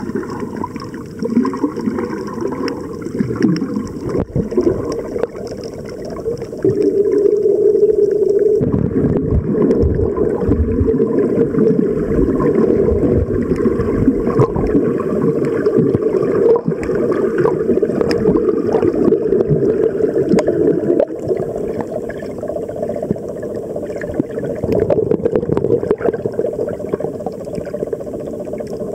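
Muffled underwater water noise picked up by the camera while snorkeling: a steady, low, churning wash with gurgles and faint clicks. It grows louder about seven seconds in.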